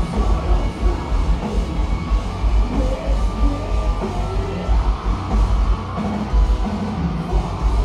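Live metalcore band playing loud, with distorted guitars, rapid heavy drumming and shouted, yelled vocals.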